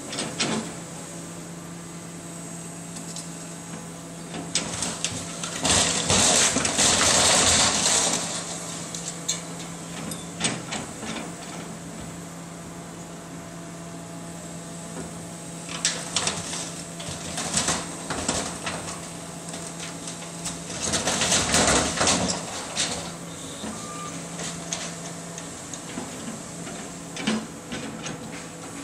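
Long-reach demolition excavator running with a steady engine hum, with bursts of crunching and clattering as its attachment breaks up the building, loudest about six to eight seconds in and again around twenty-two seconds, with sharp cracks in between.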